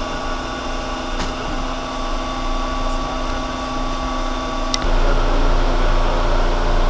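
Steady hum of room machinery, several even tones together. A faint click about a second in and a sharp click just before five seconds, after which a louder, deeper hum takes over.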